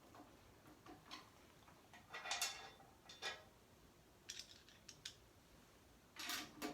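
Scattered small clicks and scrapes of metal rack hardware being handled while a 1U panel is fitted into a network rack, the loudest about two seconds in and again near the end.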